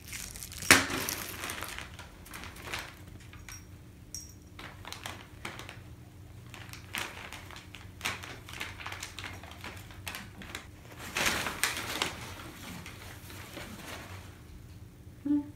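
Things being handled and moved about: scattered knocks and clicks, one sharp knock about a second in, and bursts of rustling near the end, over a faint steady hum.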